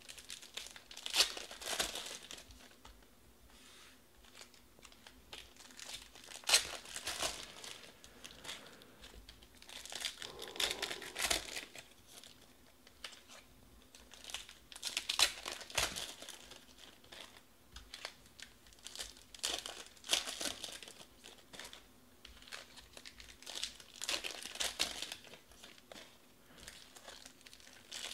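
Foil wrappers of trading-card packs being torn open and crinkled by hand. It comes in repeated bursts about every four to five seconds, one pack after another, with quieter rustling between.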